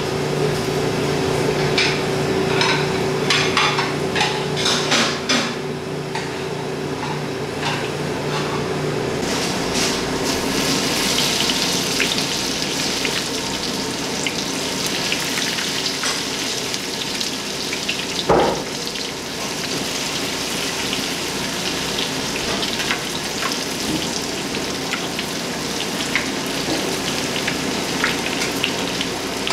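Hot oil sizzling as shredded-coated lobster bites deep-fry in a pan, setting in about a third of the way through. Before that there is a steady hum with a few clicks. A single sharp knock comes about two-thirds through.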